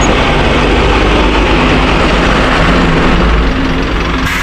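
Heavy truck engines idling in stopped traffic: a steady low rumble with a rushing noise over it, and a brief hiss near the end.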